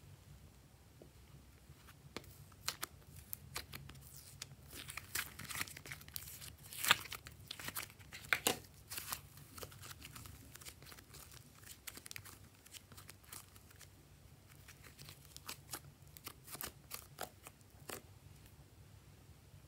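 Hands working soft slime out of a plastic popsicle-shaped tub and squeezing it: scattered sharp clicks and crackles of the plastic and the stretching slime, loudest about seven and eight and a half seconds in.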